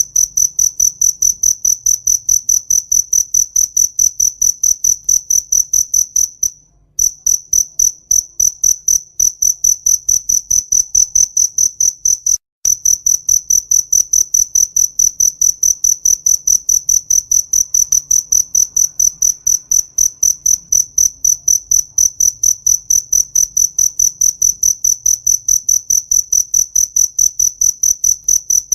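A cricket chirping close up: one high-pitched, rapid and even chirp repeated several times a second, broken twice by a brief pause.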